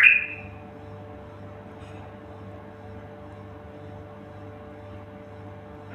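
A songbird's loud chirping phrase cuts off about half a second in, leaving only a steady low hum with no birdsong.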